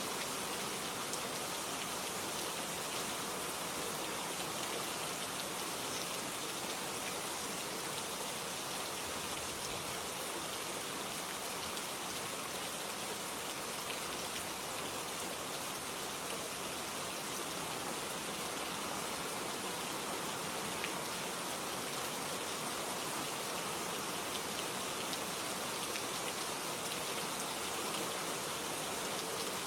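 Steady rainfall, an even hiss of rain with scattered individual drop ticks on a surface.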